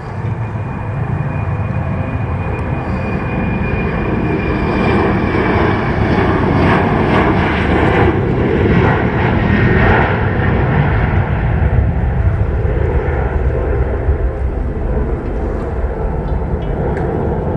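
Jet airliner passing close by, its engine noise building to a peak about halfway through and then easing off, with a high whine in the first few seconds.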